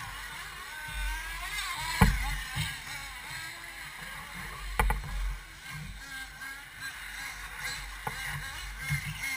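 1/8-scale off-road RC buggies racing on a dirt track, their small motors whining and wavering up and down in pitch as they speed up and slow down. Three sharp knocks stand out, about 2 seconds in (the loudest), near 5 seconds and about 8 seconds in.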